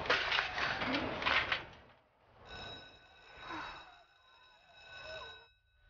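Quiet outdoor background hiss with a few low cooing calls from pigeons, then after a short gap a faint, steady bell-like ringing lasting about three seconds that stops abruptly.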